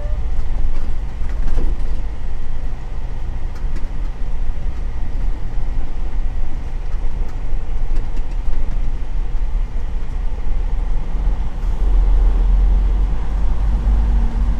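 Semi truck's diesel engine running at low speed, heard from inside the cab as a steady low rumble.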